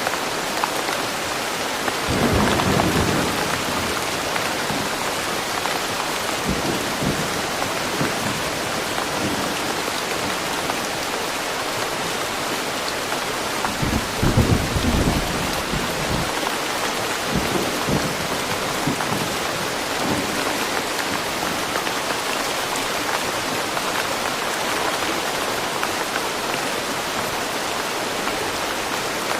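Steady rain falling in woodland, with low rolls of thunder. The loudest rolls come about two seconds in and again around fourteen seconds in, with fainter ones between.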